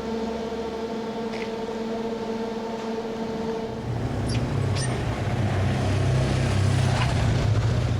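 A vehicle running: a steady whine for about four seconds, then a louder low rumble that builds and cuts off suddenly at the end.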